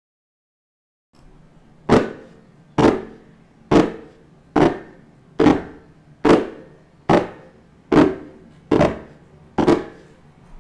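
A steady series of ten sharp knocks, a little more than one a second, each dying away quickly. They begin after about a second and a half of silence.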